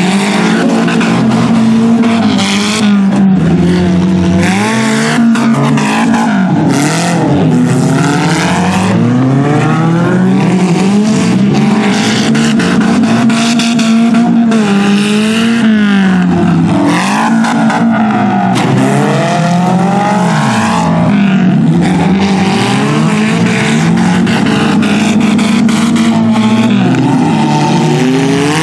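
Several demolition derby car engines revving hard together, their pitch rising and falling over and over as the cars accelerate, turn and back up.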